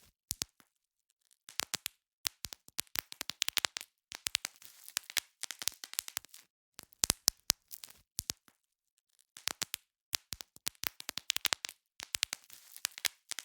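Bubble wrap being popped: bursts of sharp snapping pops, several in quick succession, with plastic crinkling between them, coming in groups of a second or two separated by brief pauses.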